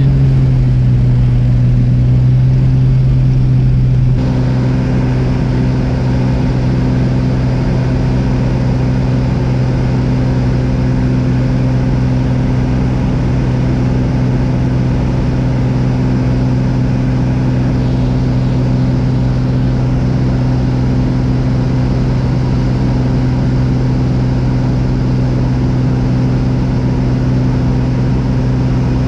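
Single-engine propeller plane's engine and propeller droning steadily, heard from inside the cabin during takeoff and climb. The level steps down slightly about four seconds in, then holds.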